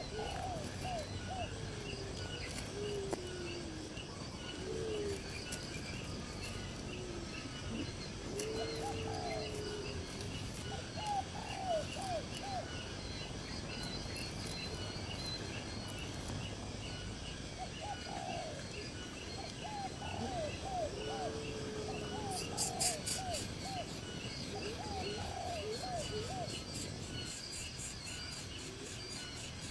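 Birds calling in groups of short, low, curving notes that come and go, over steady rhythmic chirping of insects.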